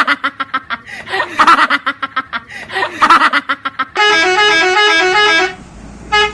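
Multi-tone bus 'telolet' horn. First comes a run of quick rhythmic toots, then, about four seconds in, a melody of notes stepping up and down, and a short blast near the end.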